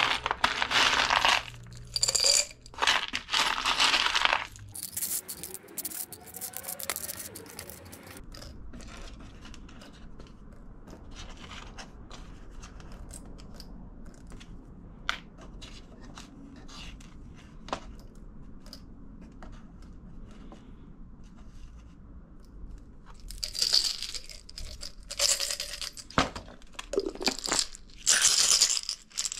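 Small metal hardware, screws and bolts, clattering and clinking with a ringing jingle. It comes in two spells of a few seconds, one at the start and one near the end, with scattered small clicks between them.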